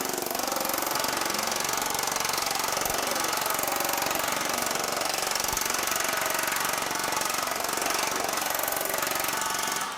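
Pneumatic power hammer running steadily with shrinking dies, beating rapidly on the edge of 1100 aluminum sheet as it is shrunk. The hammering stops abruptly near the end.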